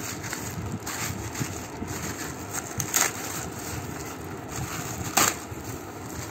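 Plastic packing wrap rustling and crinkling as it is handled inside a cardboard box, with sharper crackles about three and about five seconds in.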